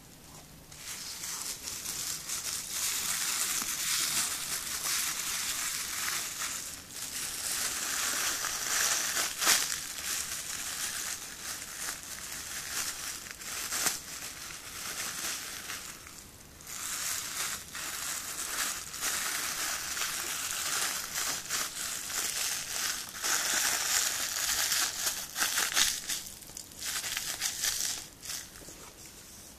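Thin plastic shopping bag crinkling as hands fold it over and press it flat, in long stretches of crackling with short pauses and a few sharper crackles.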